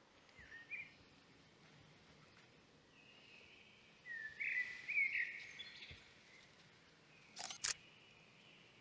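Birds chirping, a short call about half a second in and a louder run of calls around the middle, then a camera shutter clicking twice in quick succession near the end.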